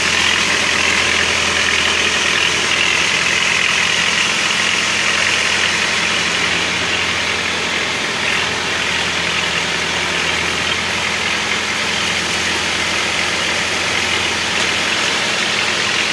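Engine of a motorised outrigger boat (bangka) running steadily while underway towing a fishing line, with an even hum and a steady hiss over it.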